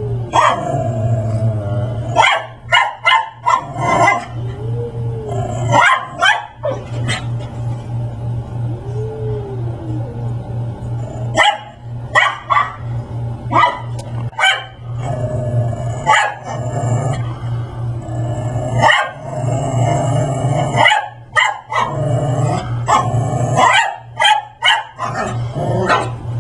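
Brussels griffon barking repeatedly in bursts of several sharp barks with short pauses between, over a steady low hum.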